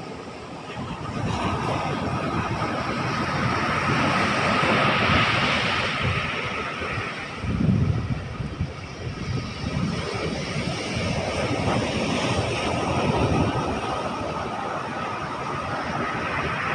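Ocean surf washing ashore, with wind buffeting the microphone in low rumbling gusts, the heaviest about halfway through. A thin steady whine sits underneath.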